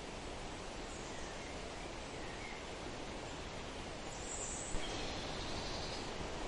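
Steady wind rushing through forest trees, with a few faint bird chirps in the first half and a brighter, higher birdcall about four and a half seconds in.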